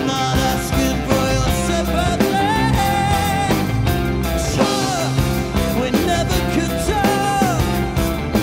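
Live rock band playing a slow progressive rock song, with a male lead vocal singing long held notes that slide down at their ends over the band's backing.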